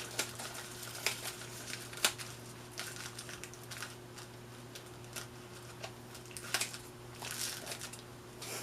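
Scattered light clicks and brief rustles of packing material being handled around potted plants, at irregular intervals over a steady low hum.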